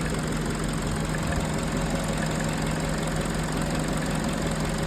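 Peugeot 207's petrol engine idling steadily and smoothly, with the electric radiator fan running. The rough idle and misfire are gone now that a broken intermediate rocker arm has been replaced.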